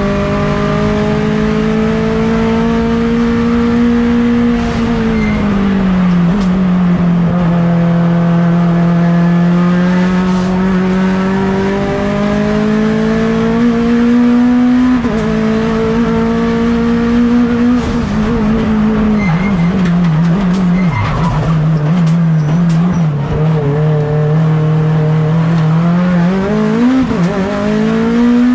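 Mitsubishi Lancer Evolution X's turbocharged 4B11 four-cylinder race engine, heard onboard under hard driving. The revs climb and fall with throttle and gear changes: a sudden drop about halfway through, a low wavering stretch a few seconds later, and a climb again near the end.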